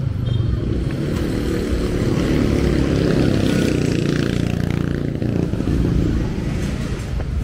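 A motorcycle engine running close by on a street, fuller through the middle few seconds.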